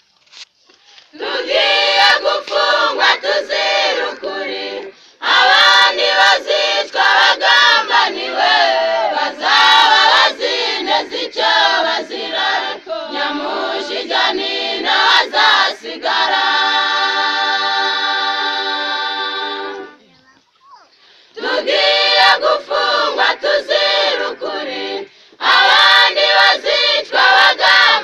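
A choir singing a Kinyarwanda song unaccompanied, in phrases broken by short pauses, with one long held note a little past the middle.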